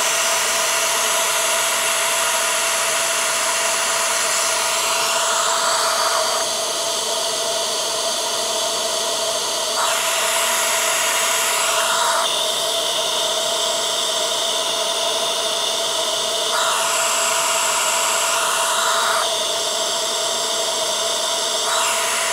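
CPAP blower fan running steadily: a high whine over loud rushing air. The hiss of the air changes colour several times as a 3D-printed dual-intake baffle airbox is held over the intake and moved, but the overall loudness hardly drops, so the baffle does little to quieten the intake noise.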